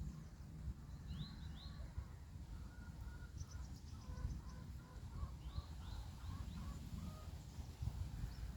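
Small wild birds chirping: a few quick rising chirps and, a few seconds in, a short rapid high trill, over a steady low rumble.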